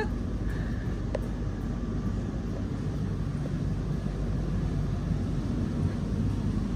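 Steady low rumble and hum inside a metro train carriage, with a faint click about a second in.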